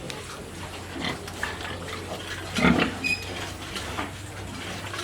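Pigs grunting in short, scattered calls, with one louder grunt about two and a half seconds in.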